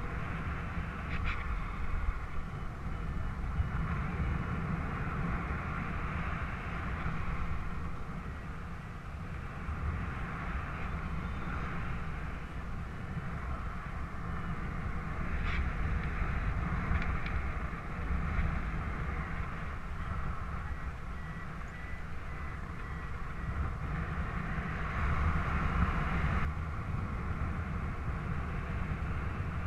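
Airflow rushing over the microphone of a paraglider in flight: a steady low rumble with hiss that swells and eases, broken by a few brief ticks.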